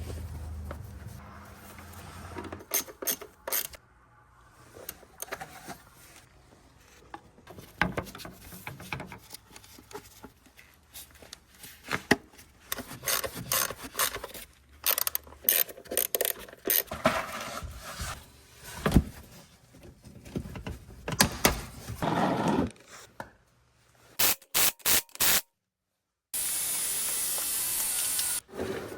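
Intermittent scraping, rubbing and sharp clicks of hands and tools working on metal parts, with a steady hiss for about two seconds near the end.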